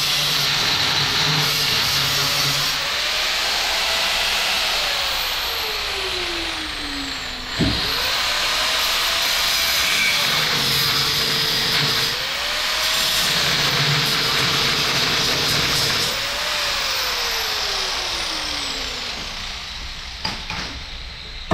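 A power tool working on metal: a steady gritty hiss over a motor whine. The whine sags in pitch over a few seconds as the tool is pressed into the work, then climbs back as it is eased off, several times over. There is a single sharp knock about seven and a half seconds in.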